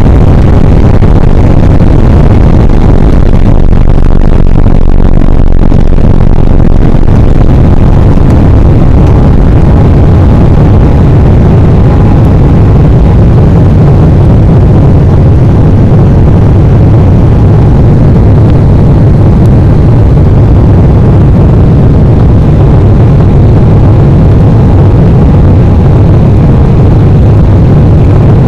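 Embraer E190's GE CF34-10E turbofan engines at takeoff thrust, heard from inside the passenger cabin as a loud, steady, deep engine noise through the end of the takeoff roll, liftoff and initial climb.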